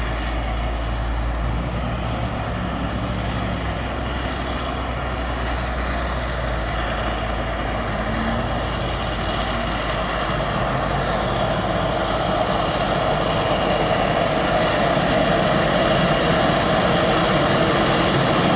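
Steady outdoor background rumble, then a distant train growing steadily louder over the last several seconds as it approaches: the AD60 class Beyer-Garratt steam locomotive 6029, with diesel locomotives mid-train.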